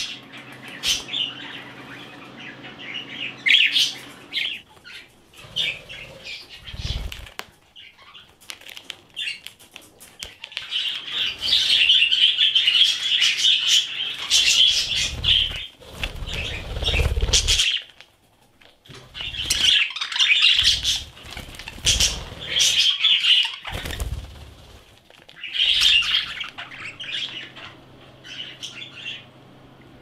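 Pet budgerigars chirping and chattering, with several short bursts of wing flapping.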